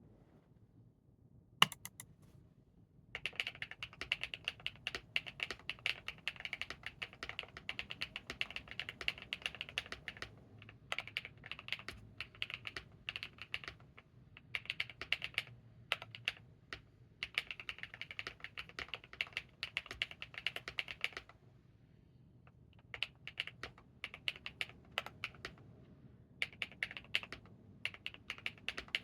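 Monsgeek M2 mechanical keyboard with G-Squared White Warrior switches, KCA-profile keycaps and PET, IXPE and Poron foam inside, typed on fast in runs of several seconds with short pauses between. A single sharp click comes about a second and a half in, and the typing starts about three seconds in.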